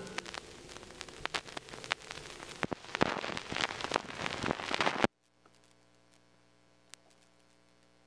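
Crackle and pops of surface noise from an old record after the song's last note has faded. It cuts off suddenly about five seconds in, leaving near silence with a faint hum.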